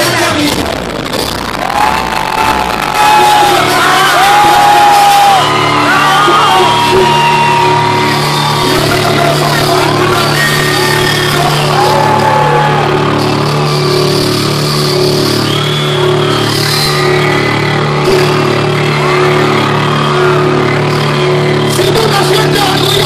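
Live reggaeton concert music, loud from the crowd: a steady bass line with a singer's voice over it.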